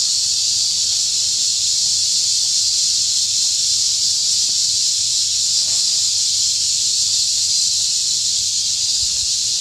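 A steady, high-pitched drone of insects in the forest, unbroken and fairly loud.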